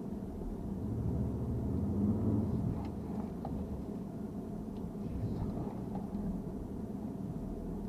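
An engine running with a low, steady rumble that swells a second or two in, with a few faint clicks over it.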